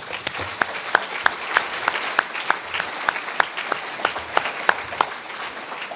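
Audience applauding a finished lecture: many people clapping together, dense and steady.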